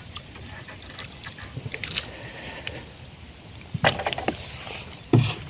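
Gear being handled on a wooden footbridge over water: small scattered clicks and rustles, a few sharp knocks about four seconds in, and a heavier thump near the end.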